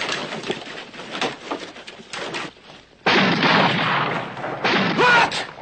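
Clattering and knocks, then loud gunfire about three seconds in, and again shortly before the end.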